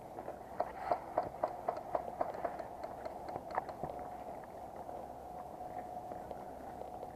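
Quick running footsteps, about four a second, for the first half, then they stop and a steady faint hum remains.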